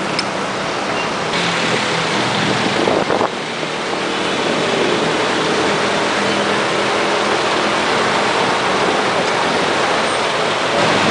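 Petrol running from a pump nozzle into a motorbike's fuel tank: a steady rushing hiss that grows a little louder after about four seconds.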